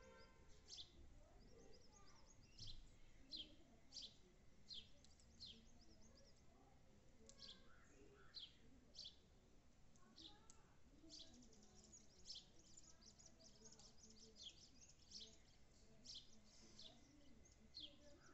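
Faint house sparrow chirping: short, high cheeps repeated irregularly, with a quicker run of chirps around the middle.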